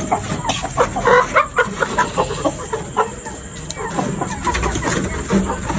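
Domestic chickens clucking, a dense run of short calls one after another.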